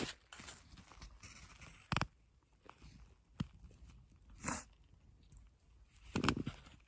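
Scattered crunches and knocks of someone moving about and handling things on packed snow. There is a sharp knock about two seconds in, a few lighter crunches after it, and a louder rustling crunch near the end.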